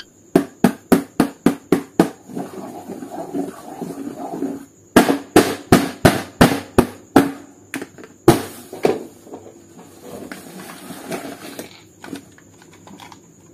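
Sharp knocks struck on a hard surface by a hand-held object: a quick run of about eight at roughly four a second, a pause, a second run of about seven, then a few single knocks.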